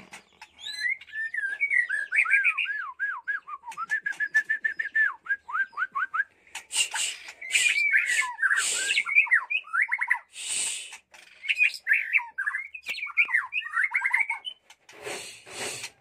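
White-rumped shama (murai batu) singing a long, varied song of rapid whistled notes swooping up and down. From about six seconds in, harsh, scratchy notes are mixed among the whistles. The song stops shortly before the end.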